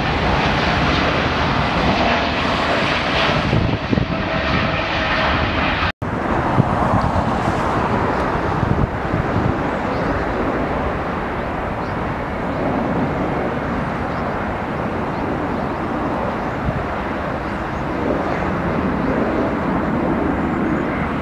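Boeing 787 airliner's jet engines at takeoff thrust on the takeoff roll: a steady roar carrying a high whine. About six seconds in, a cut brings a duller, steadier roar as the airliner climbs away.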